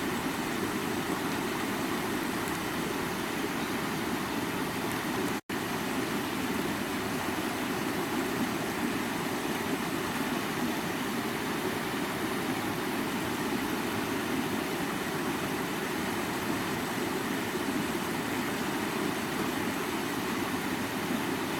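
Stream water rushing steadily over rocks, an even flowing noise. It cuts out for an instant about five seconds in.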